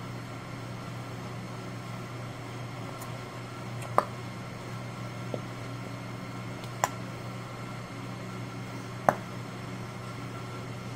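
Steady low room hum with three sharp clicks, a few seconds apart, and one fainter click, from a plastic glue bottle being squeezed and handled while glue is poured into a bowl.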